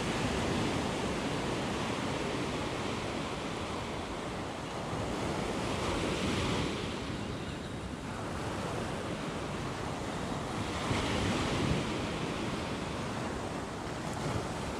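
Ocean surf breaking and washing up a sandy beach, swelling in surges every few seconds.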